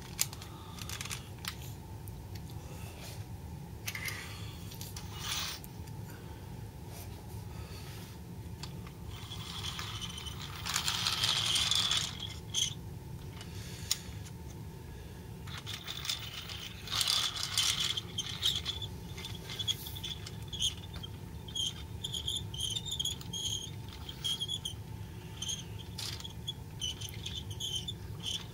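Toy trucks being handled and pushed on a hard floor: scattered plastic clicks and rattles of the trailer and its load, with a couple of longer scrapes about ten and seventeen seconds in, and quick small rattles near the end.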